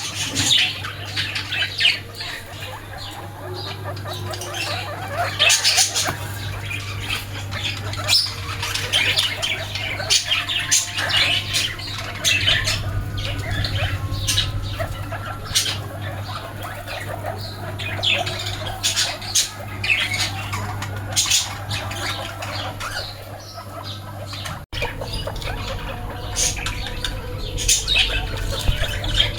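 Many short, high squeaks and squawks from small animals, coming irregularly throughout, over a steady low hum.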